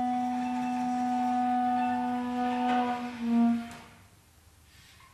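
A clarinet holds one long, steady low note while other instruments of the small ensemble add soft higher tones. It ends with a short, louder note about three and a half seconds in, and the music then stops.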